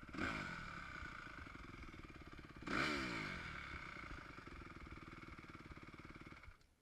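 2015 Honda CRF250 motocross bike's single-cylinder four-stroke engine idling, blipped twice, the second rev the louder. The engine cuts out near the end.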